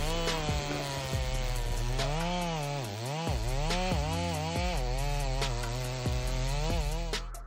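Chainsaw engine running hard while cutting through wood, its pitch repeatedly dipping as the chain bogs in the cut and then recovering. It stops abruptly at the very end.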